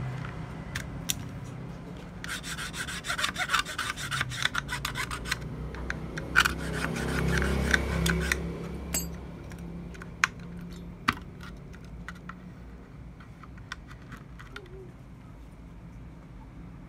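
Rapid rubbing and scraping strokes from cleaning a dirty RAM slot and memory module contacts on a motherboard. The strokes come in two runs, then give way to a few scattered clicks.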